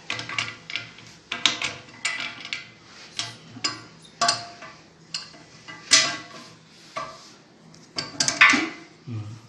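Water pump pliers clicking and clinking against the nut of a stainless steel (SS 304) braided toilet inlet connection as it is tightened. An irregular series of sharp metallic clicks, a few of them ringing briefly.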